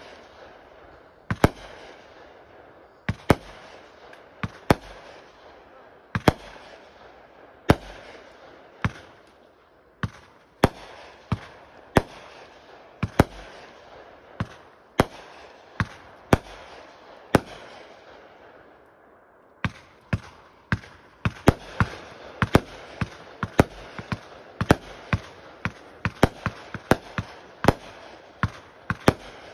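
Aerial fireworks display: shells bursting in a series of sharp bangs, each trailing off, at first about one to one and a half seconds apart. After a short lull about two-thirds of the way through, the bangs come faster and closer together.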